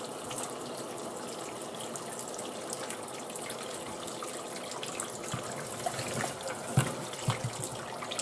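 Cold tap water running and splashing onto a pressure cooker's lid in a sink: the quick cold-water release that cools the cooker and brings its pressure down after cooking. A few knocks near the end, the loudest about seven seconds in.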